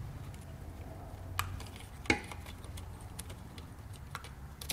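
A few light metallic clicks and taps as the scooter engine's stator and its wires are handled against the engine case, the sharpest about two seconds in, over a low steady hum.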